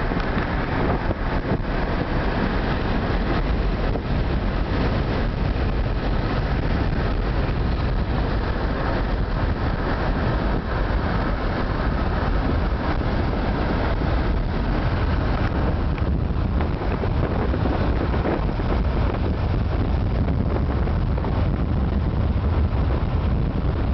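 Steady road and wind noise of a moving car, heard from inside the car: a constant low rumble with no breaks or distinct events.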